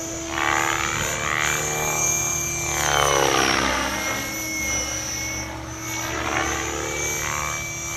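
Align T-Rex 600E electric RC helicopter in flight: a steady high motor whine under the whoosh of the rotor blades, which rises and falls in pitch several times as the helicopter swoops about and passes by.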